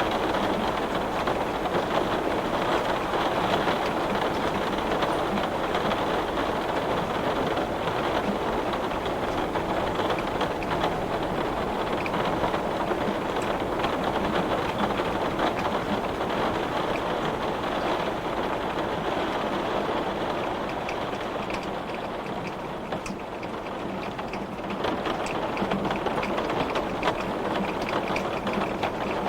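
Heavy rain pattering steadily on window glass, a dense rush with many small sharp drop impacts. It eases slightly for a few seconds past the middle, then picks up again.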